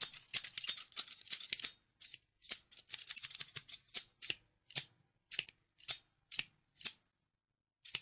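Scissors snipping: a quick run of snips in the first two seconds, another cluster around three seconds in, then single crisp snips about twice a second, with a last one near the end.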